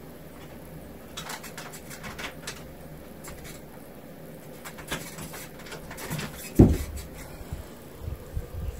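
A cat's claws clicking and scrabbling as it climbs a wire cat cage. Later comes a single loud thump as it jumps down to the floor, followed by a few soft knocks.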